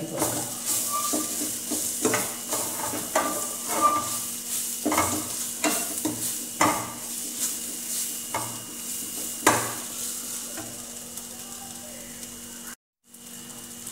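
Onion-tomato masala sizzling in a stainless steel pan as a steel spoon stirs it, scraping and knocking against the pan every second or so. The sound cuts out for a moment near the end.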